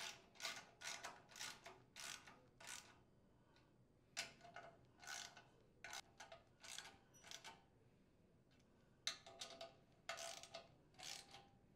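Socket ratchet clicking faintly in short strokes, about two or three a second, as screws are tightened down, in three runs broken by two short pauses.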